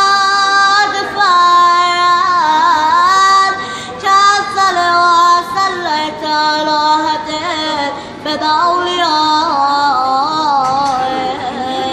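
A solo voice chanting a Shia devotional salawat in a melismatic style: long held notes decorated with winding turns and glides between pitches.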